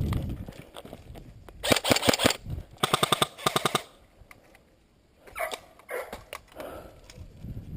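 Airsoft rifle firing two quick bursts of rapid shots, one just under two seconds in and another about a second later, followed by a few scattered fainter pops.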